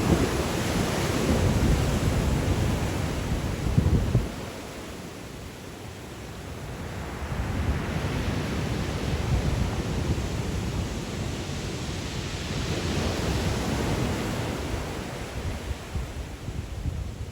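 Black Sea waves breaking on the shore in strong wind, with gusts buffeting the microphone. The low rumble drops away suddenly about four seconds in, then the surf and wind build again, with a hissing wash swelling midway through the second half.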